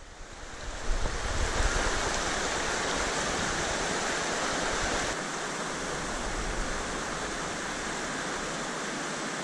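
Mountain trout stream running over rocks and riffles: a steady rushing hiss of water that fades in over the first second. A low rumble under it drops away about five seconds in, leaving the water sound a little quieter.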